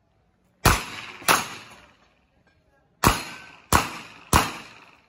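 Revolver shots fired at a steady pace: two shots, a pause of about a second and a half, then three more, each shot followed by a brief echoing tail.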